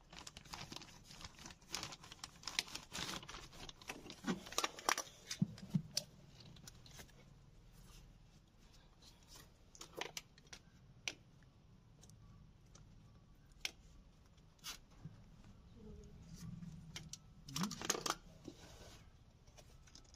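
Hand work on a car's fuel line: scattered clicks, taps and short rustling and scraping noises as the line is opened.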